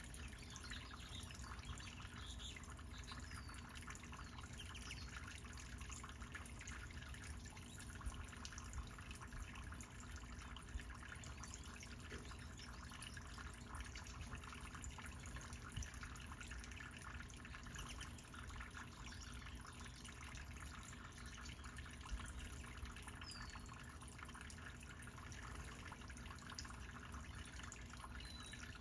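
Small tiered garden fountain's water jets splashing and trickling steadily into its basin. Twice there is a faint, short, high bird chirp.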